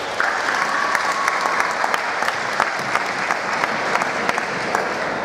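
Audience applauding, a dense patter of hand claps with a few sharper single claps standing out.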